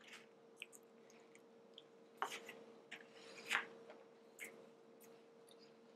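A person eating: faint chewing and mouth sounds with a few short, light clicks, over a steady faint hum.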